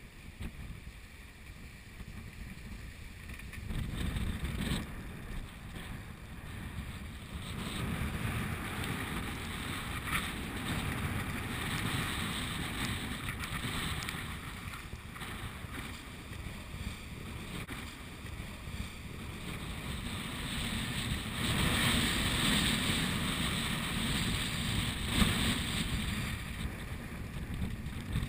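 Strong wind buffeting the microphone over the rush of waves breaking against a sailboat's bow in rough seas, the noise swelling and easing in surges as the hull meets each wave.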